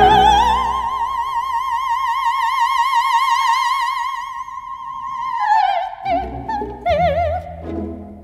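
An operatic singing voice holds one long high note with wide vibrato for about five seconds, then drops to a few shorter, lower notes. Low orchestral instruments come in underneath near the end.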